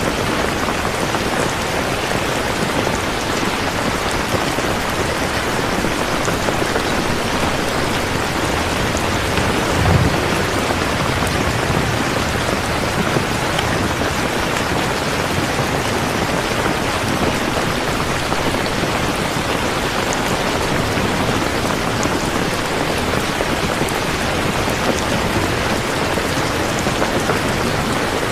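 Steady, dense rainfall pattering on a surface. About ten seconds in there is a brief low thump.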